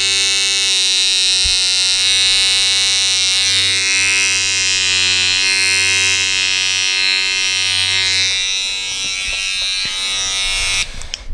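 Electric hair trimmer buzzing steadily as it edges a hairline during a line-up haircut. The buzz stops abruptly near the end.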